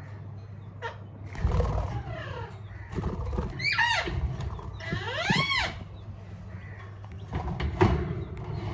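Parrots calling: a series of harsh squawks that glide in pitch, the loudest two arching up and back down near the middle.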